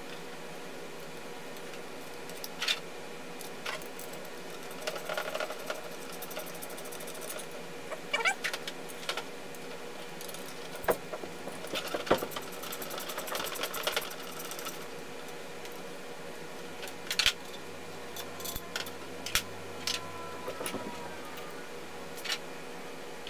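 Scattered clicks, taps and light clatter of hands handling a printer's heated-bed build plate and small screws and parts on a table, with rustling in places, over a faint steady hum.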